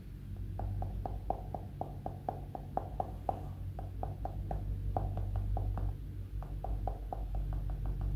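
Rapid light tapping, about four to six taps a second in an uneven rhythm, over a low steady hum.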